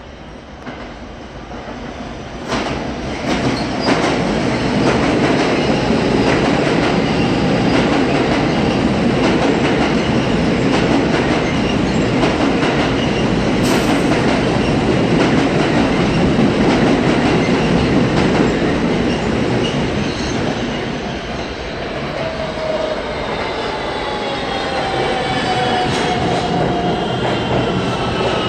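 New York City subway trains: one runs through on the express track, its wheels and cars rumbling loudly with sharp clicks over the rail joints. From about two-thirds of the way in, an R160 subway car pulls in on the near track, its propulsion giving several whines that fall in pitch as it brakes.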